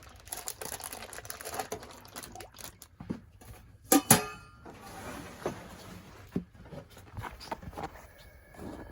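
Food being handled into a metal cooking pot: scattered small knocks and rustling, with two sharp metallic clanks about four seconds in, the second ringing briefly.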